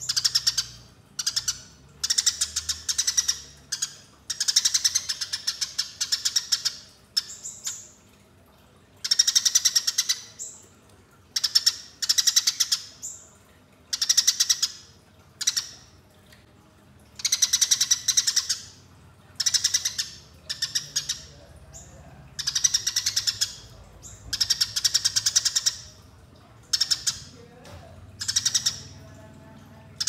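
Eurasian tree sparrow giving loud, harsh chattering calls in about a dozen bursts of rapidly repeated notes, each burst one to two seconds long with short gaps between: the agitated 'fighting' chatter of the species, used as a lure call.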